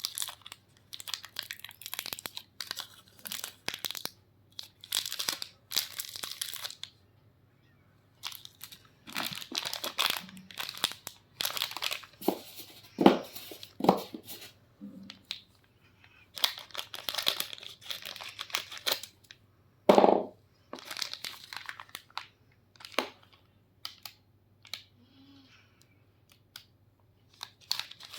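Plastic candy wrappers crinkling and tearing in short, irregular bursts, with a few louder crackles.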